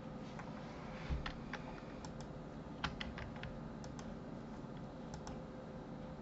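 Faint, irregular clicks of a computer mouse button and keyboard keys as objects are shift-clicked to select them, over a low steady hum.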